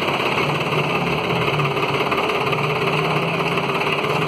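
An engine idling steadily with a fast, even chugging pulse.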